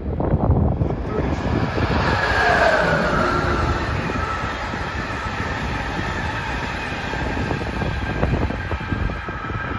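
Amtrak passenger train passing at speed: a steady rumble of wheels on the rails, with high whining tones that slide lower about two to three seconds in as it goes by.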